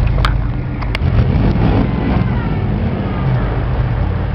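Off-road truck engine running steadily at low revs, with two sharp clicks in the first second.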